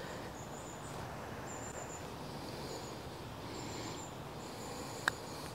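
A putter strikes a golf ball once, a single sharp click about five seconds in. It sits over steady outdoor background noise with faint, high, short chirps repeating.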